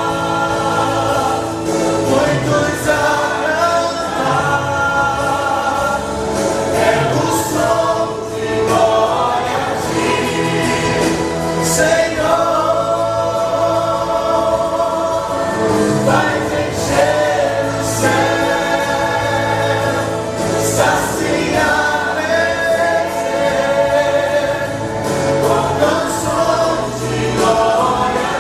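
Choir singing a gospel song over instrumental accompaniment, with steady bass notes and occasional cymbal-like crashes.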